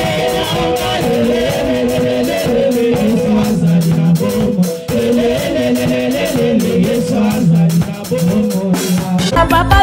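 Music: a song with singing over a drum beat, the beat growing heavier near the end.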